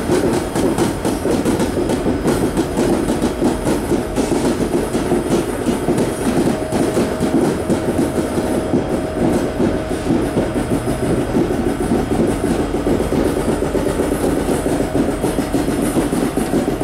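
Diesel locomotives rolling past, engines running with a steady rumble and the clatter of steel wheels over the rail joints.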